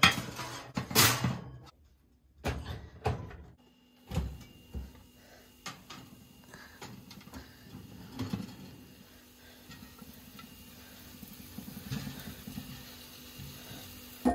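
Glass baking dishes slid onto a wire oven rack, clattering and scraping against the rack in the first few seconds. Lighter clinks and scrapes follow as a spatula moves cauliflower florets around in the dishes, over a steady low hum.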